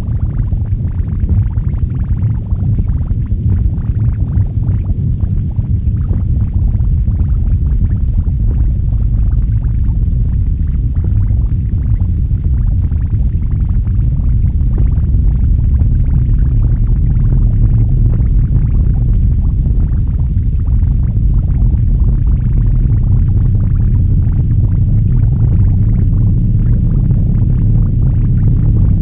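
Experimental noise recording: a loud, dense, steady low rumble drone with a fine crackling texture over it, and no rhythm or melody.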